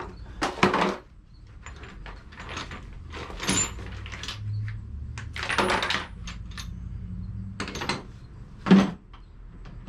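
Metal hand tools clattering and clinking as they are picked up and sorted through, in a string of separate clanks with the sharpest one near the end.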